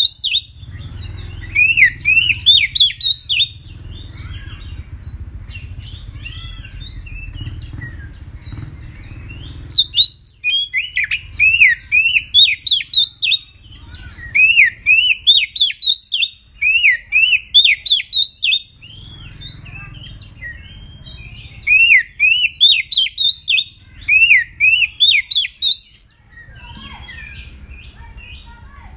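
Oriental magpie-robin singing a fierce song: four loud phrases of fast, repeated rising-and-falling chirps, each a few seconds long, with softer twittering in the gaps.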